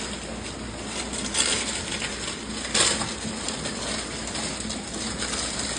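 TIG Brush electrochemical weld cleaner electropolishing stainless steel: a steady hiss with irregular crackles as the fluid-soaked brush works the metal under current, with two louder bursts about a second and a half in and near three seconds.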